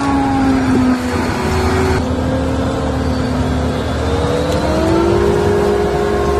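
Claas forage harvester running under load while chopping maize, with a loud whine from its engine and chopper drum that dips slightly in pitch about a second in and rises again near the end, over a low rumble.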